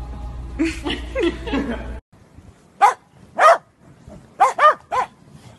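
Dogs barking: five short, sharp barks over about two seconds, the second one a little longer. Before them, over a steady low hum, come a few quick higher cries.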